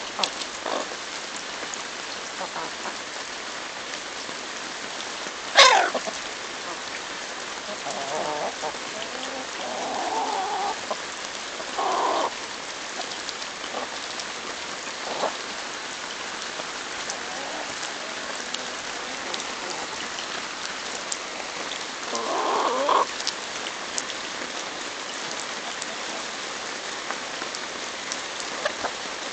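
Hens clucking and squawking as they crowd in to peck at an ear of corn held out by hand, with one sharp, loud squawk about six seconds in and a longer call later on, over a steady background hiss.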